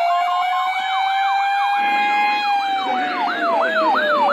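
Electronic siren-style alert tones ahead of a broadcast severe thunderstorm warning. A slow wail rises and then falls, layered with fast yelp sweeps about three a second, and a pulsing beep stops under a second in.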